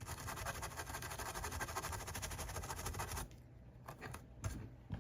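Rapid scratching and clicking of hands handling and fitting an original Xbox's parts during reassembly, busy for about three seconds and then thinning to a few scattered clicks.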